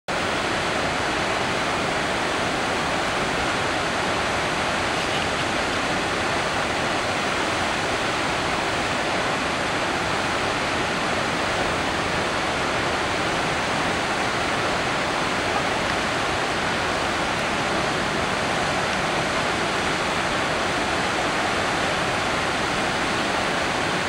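A waterfall cascading over boulders, a steady, even rush of falling white water.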